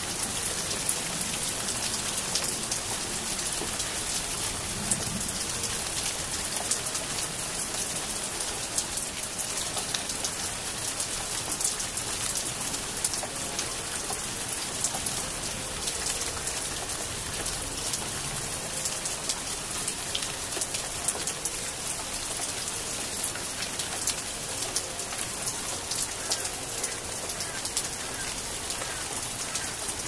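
Steady rainfall: a constant hiss dotted with many sharp, separate raindrop hits.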